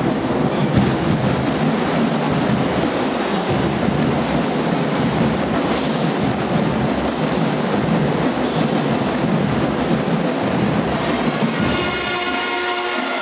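Marching band drumline playing a dense percussion cadence. About twelve seconds in, the brass section comes in with sustained chords.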